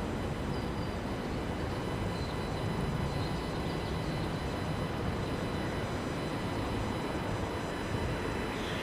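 Airbus A320-232's IAE V2500 turbofans at takeoff thrust, a steady low rumble as the jet rolls, lifts off and climbs away.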